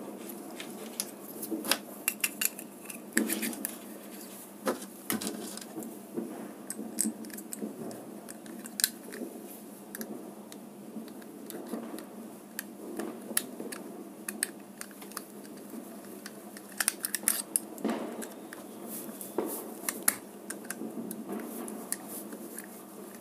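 Small screwdriver turning the screw of a plastic three-pin plug, with irregular sharp clicks and scrapes of metal on screw and plastic as the plug body is closed and tightened.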